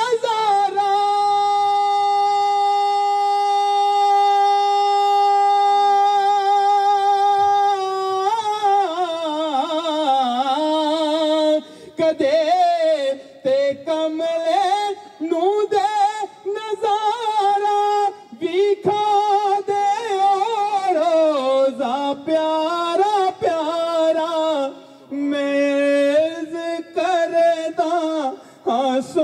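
A man singing a durood-o-salam devotional recitation. He holds one long, steady note for about seven seconds, then moves into an ornamented, wavering melodic line, broken by short pauses for breath.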